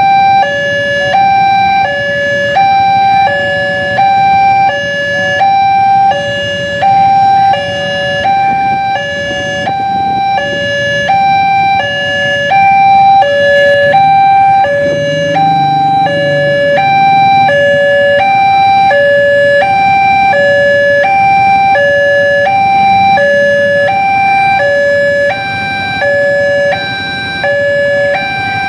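Railway level crossing warning alarm sounding from the horn loudspeaker on the crossing post: two electronic tones alternating high-low, each about half a second, repeating steadily. Low traffic rumble from waiting motorbikes sits underneath.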